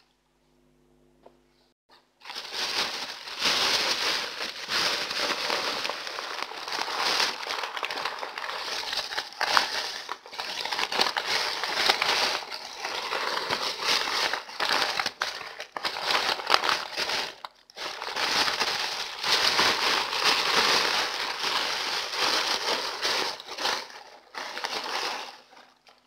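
A thin plastic bag and greaseproof paper crinkling and rustling as paper-wrapped herb bundles are packed into the bag and the bag is folded around them. It starts about two seconds in and goes on with a few short pauses until just before the end.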